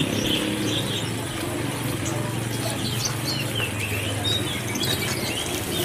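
A motor vehicle's engine running steadily at low speed, with short high chirps over it.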